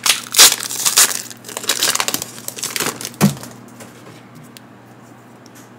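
Foil wrapper of a Pokémon card booster pack being torn open and crinkled by hand. There are about three seconds of loud crackling that end in one sharp crackle, followed only by a few faint ticks.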